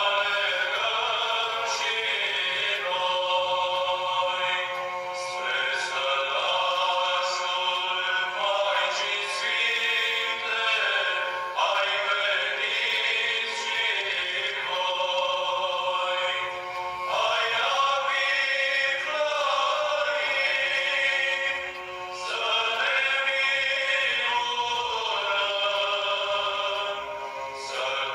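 Music with singing: a slow vocal melody of long held notes, with no speech.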